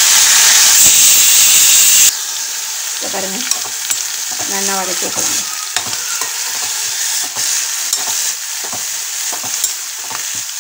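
Chopped onion, carrot, beans and green chilli sizzling in oil in a steel kadai while being stirred, with the spatula clicking and scraping against the pan. The hiss is loud at first and drops sharply about two seconds in to a quieter, steady sizzle.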